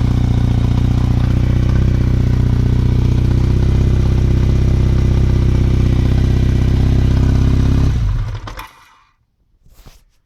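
Kawasaki KZ750 motorcycle engine running cold at a steady idle, showing the noise it makes when cold. About eight seconds in it stops and runs down to near silence.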